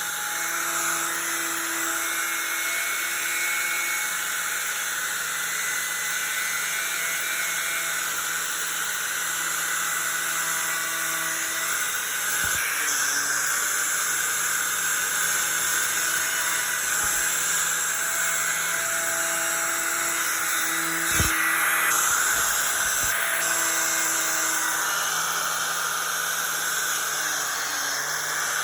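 Milwaukee 11-amp angle grinder running a twisted-knot wire wheel against a painted, rusted metal door, stripping paint and rust. It makes a steady motor whine over a harsh hiss, with a couple of brief knocks.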